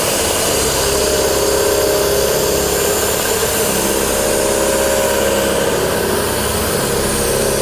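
Olivetti CNC horizontal boring mill running with a steady mechanical hum and hiss. A whine of several close tones fades about a second in, returns, and fades again near the end.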